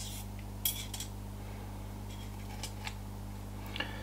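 Stainless steel wire skewer rack clinking and tapping against a plastic air fryer crisper plate as it is set in place: a handful of light metallic clicks, the loudest about two-thirds of a second in, over a steady low hum.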